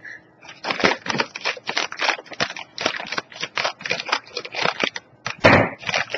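Crinkly plastic snack-chip bag being handled and opened: a quick, irregular crackle of the film, with one louder crunch of the bag about five and a half seconds in.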